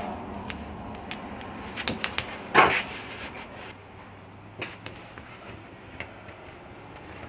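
Hands working blue painter's tape on a cutting mat: light crinkles and clicks, with one short tearing rip of tape about two and a half seconds in. Near the middle, a couple of light clicks as a small slotted steel plate is set down on the taped mat.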